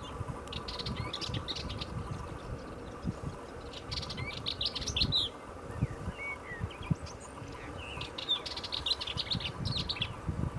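A songbird singing three phrases of rapid high notes, about four seconds apart, with a few short calls between them, over a low rumble.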